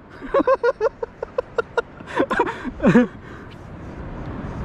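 A man laughing in a quick run of short 'ha-ha' pulses, then a longer laugh that falls away about three seconds in. A steady rushing noise follows and grows slightly louder near the end.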